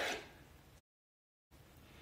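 Near silence: faint room tone, cut by a complete audio dropout lasting under a second in the middle.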